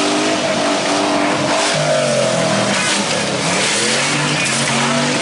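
Several full-size pickup truck engines racing at once, revving and easing off so their overlapping pitches rise and fall.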